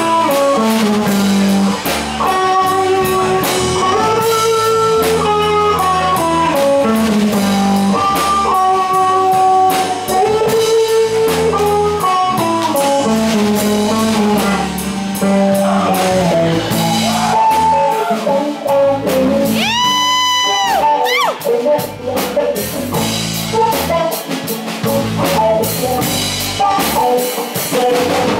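Live rock band playing an instrumental jam: an electric guitar plays a lead melody over bass guitar and drum kit, with one long held note that bends about two-thirds of the way through.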